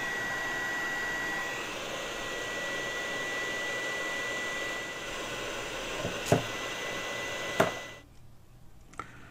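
Heat gun blowing, a steady rush of air with a thin whistle, shrinking heat-shrink tubing over a repaired wire joint. Two sharp clicks come shortly before it switches off about eight seconds in.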